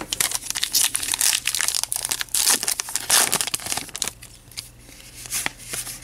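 Trading-card pack wrapper being torn open and crinkled, a dense crackling for the first few seconds, then quieter rustling and clicks as the cards inside are handled.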